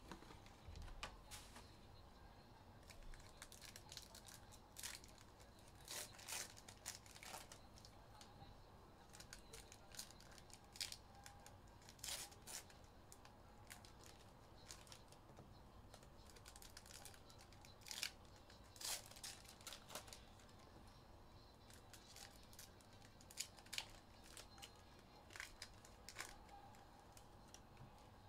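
Faint, intermittent tearing and crinkling of wrapping as a box of hockey trading cards is opened by hand, with scattered short rustles and clicks.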